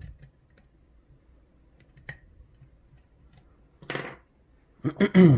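Faint scattered metallic ticks of a hook pick and tension wrench working the pins of a GeGe rim cylinder, as the picker tries to set a large serrated security pin. A short rush of noise comes about four seconds in, and a short vocal sound with a falling pitch comes just before the end, louder than the ticks.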